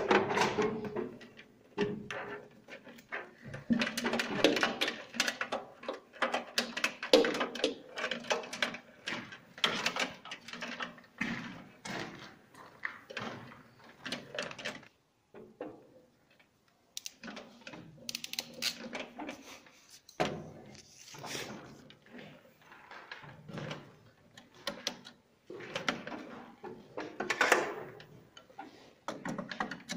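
Irregular clicks, knocks and rustling from gloved hands handling wires and miniature circuit breakers in a metal electrical distribution panel, with a loud knock at the start and a couple of quieter pauses.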